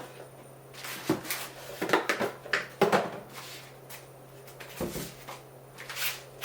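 Packaging and hard plastic parts, drone batteries from the box, being handled: irregular rustles, clicks and light knocks, with a faint steady low hum underneath.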